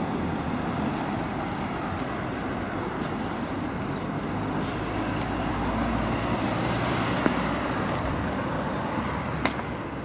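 Blackpool Flexity 2 tram and road traffic running, a steady rumble with a low hum that swells through the middle. Two sharp clicks come near the end.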